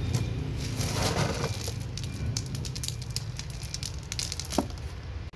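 Hand stirring and scooping a box of lightweight fired-clay pebbles (expanded clay balls): a run of dry clicks and rattles as the pebbles clatter against each other. A few pebbles drop back from the palm near the end.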